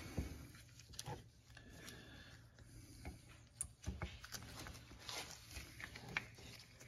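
A few faint clicks and light knocks as a brake pad's metal backing plate is worked at an angle into a front brake caliper bracket by gloved hands.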